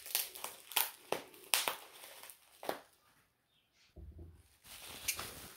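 Crinkly metallic plastic wrapping crackling and tearing as it is pulled open by hand, in a run of sharp crackles, a brief pause, then more crackling near the end. A soft low bump comes about four seconds in.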